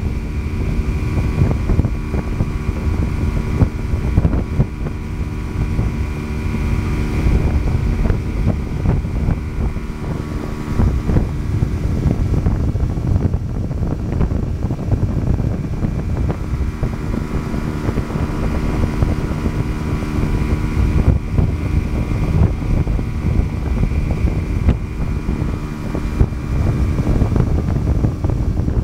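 Tow boat's engine running steadily at speed, heard from aboard the boat, with wind rumbling on the microphone.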